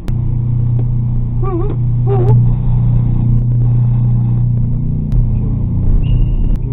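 Steady low hum of a running vehicle engine, with two short warbling tones about a second and a half in and a short high beep near the end.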